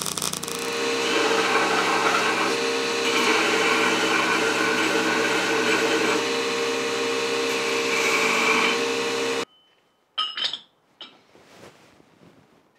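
Wilton belt grinder running steadily with the 4140 steel swage held against the belt, cleaning up the welded tool, then cutting off suddenly about nine seconds in. About a second later come a few short metallic clinks as the swage is set down on the anvil.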